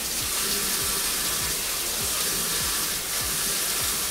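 Kitchen tap running steadily into a sink, an even rushing hiss.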